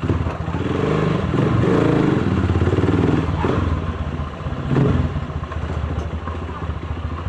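Motorstar Xplorer 200R motorcycle engine running at low speed. The revs climb for about two and a half seconds near the start, drop back, and there is another short blip of throttle about five seconds in.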